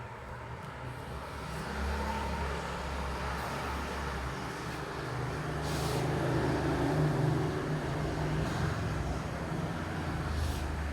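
Steady low rumble of road traffic with a background hiss, swelling slightly about halfway through.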